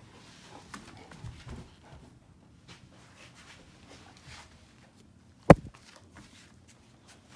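Dogs playing with a Great Dane puppy: soft grunts, snuffles and scuffling. One sharp, loud thump comes about five and a half seconds in.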